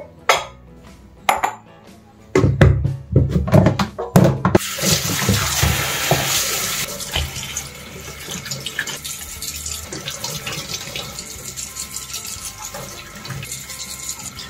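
A few sharp knocks and clatters, then, about four seconds in, a kitchen tap running into a stainless steel sink as raw katla fish pieces are rinsed by hand. The water starts suddenly, loudest at first, then settles to a steady lower run.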